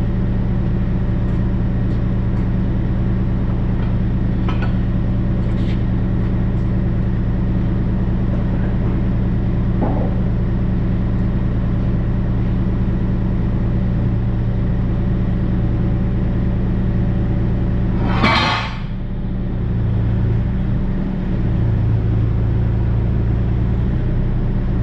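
Kubota KX040-4 mini excavator's diesel engine running steadily. About 18 s in comes a brief loud burst of noise, after which the engine note dips and shifts for a few seconds as if under hydraulic load.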